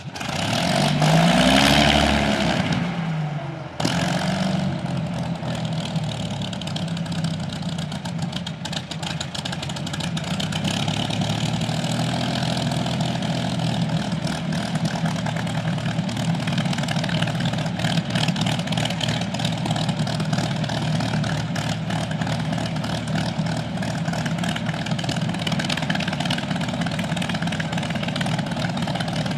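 Allison V-1710 V-12 engine of an IL-2 Sturmovik starting up: it catches with a sudden loud surge that rises and then falls in pitch over the first few seconds. After that it runs at a steady idle.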